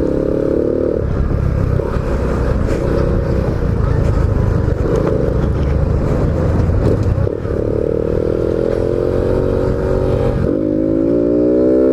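Honda Biz 125's single-cylinder four-stroke engine pulling under acceleration, its intake loud through a sport air filter, over heavy wind rumble on the microphone. The engine note climbs steadily, falls away about seven seconds in and again near the end as gears change, and each time climbs again.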